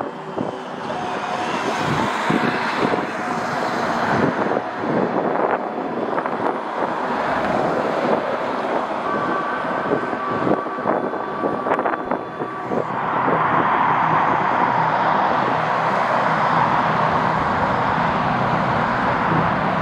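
Jet airliner engine noise: a steady rushing sound with faint whining tones, growing louder about thirteen seconds in.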